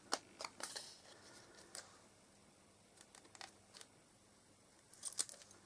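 Faint, scattered snips and clicks of scissors nipping the corners off a card panel, with light rustling of the card and paper as it is handled.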